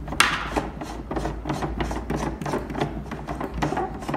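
Ridged plastic cap of a water purifier's filter housing being twisted off by hand: an irregular run of short plastic scrapes and clicks, the loudest about a quarter second in.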